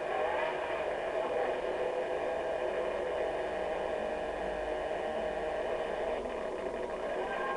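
Steady rushing hiss and hum of a roller coaster in motion, as picked up by an onboard ride camera and heard through a TV speaker. A rising scream begins at the very end.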